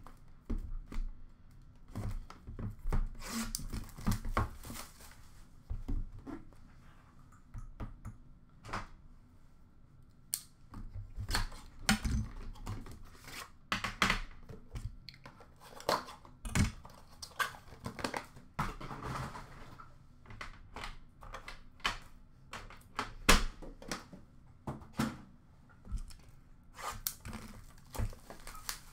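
Wrapping torn and crinkled off an Upper Deck The Cup hockey card box, then its cardboard sleeve slid off and the metal tin handled. Many sharp clicks and knocks come at uneven intervals, with rustling between them.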